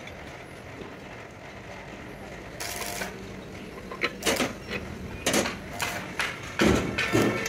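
Steel bars and tools clinking and knocking against the steel locking jaws and kingpin opening of a truck fifth wheel plate. A short rattle comes first, then a run of sharp metal clinks, loudest near the end.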